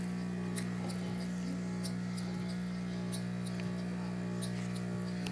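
Steady low hum of a vibrating aquarium air pump, with faint light ticks from a small brass-and-aluminium piston valve model steam engine running on the pump's air pressure.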